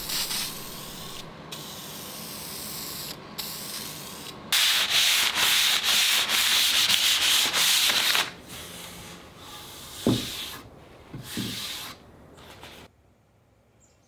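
An aerosol can of clear spray lacquer hisses in a few spurts. Then the lacquered cherry tabletop is rubbed down by hand in quick strokes, loudest for a few seconds, then softer, with a couple of light knocks before it stops.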